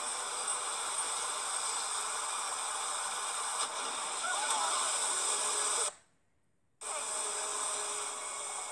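Steady rushing hiss of a huge surge of seawater and spray. It cuts out to silence for under a second a little past halfway, then resumes.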